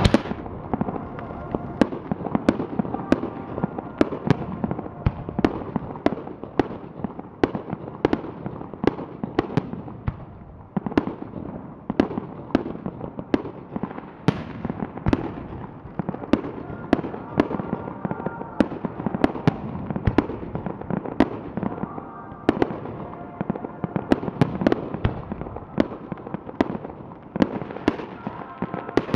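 Fireworks display: shells bursting in a rapid, unbroken series of sharp bangs, several a second, each trailed by a short rumbling echo.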